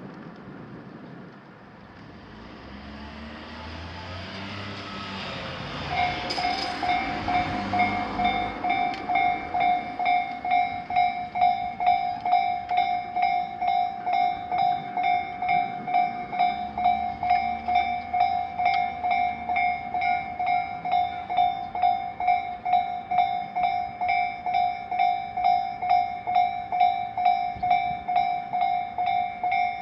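Japanese level crossing's electronic warning bell starting about six seconds in and ringing steadily at about two strokes a second: the crossing is activated for an oncoming train. Before the bell starts, the rush of a passing vehicle swells and fades.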